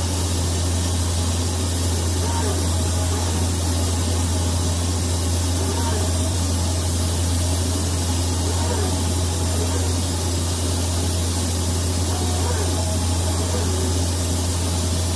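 Steady machine noise from a 5-axis DED hybrid machine laser cladding: a low hum under an even hiss, with faint tones that shift up and down over it.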